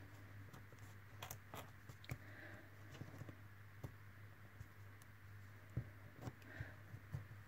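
Faint, scattered clicks and light scrapes of small pliers and thin craft wire being bent into a curl against a thin wooden template.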